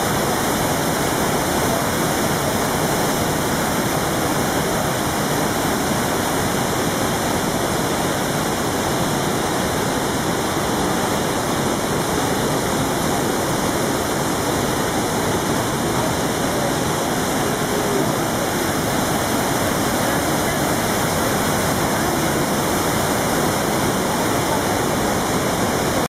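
Iguazu Falls' waterfalls pouring: a steady, loud rush of falling water.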